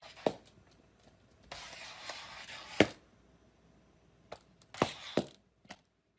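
A cat's plastic cone collar knocking and scraping against a tiled floor: several sharp knocks, the loudest just before three seconds in, with a rough scraping stretch before it.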